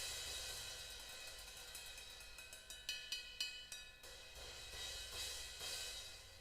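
Sabian HHX Omni 19-inch cymbal being played: its wash fades, then comes a run of quick stick strikes with a few louder hits near the middle. It swells again and dies away near the end.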